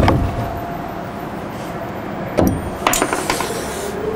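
Wooden knocks and light metallic clinks as a pre-hung interior door is worked by hand and its shipping nail taken out with a hammer: a knock at the start, then two sharp clicks near the end, the second with a short high ring after it.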